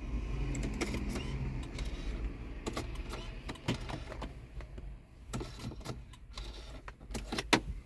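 A steady low hum inside a car cabin, with a scatter of sharp clicks and knocks from key fobs and plastic parts being handled. The clicks are loudest near the end.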